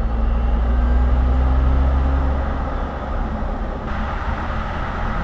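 Road noise of a battery-electric Mercedes EQS SUV driving at speed: tyres rumbling on the asphalt and wind rushing, with a strong low hum and no engine note. About four seconds in the sound changes abruptly, the low rumble dropping and the hiss of tyres and wind growing brighter.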